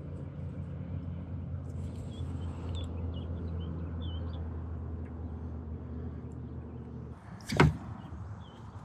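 Electric trolling motor humming steadily at low speed, stopping about seven seconds in. Near the end there is one short, sharp swish, and faint bird chirps come about two to three seconds in.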